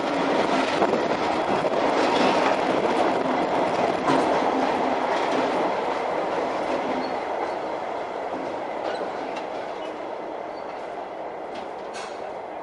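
Class 59 diesel locomotive with an EMD two-stroke V16 engine rolling slowly past at close range. The engine runs steadily, the wheels click a few times on the track, and the sound fades slowly as the locomotive moves away.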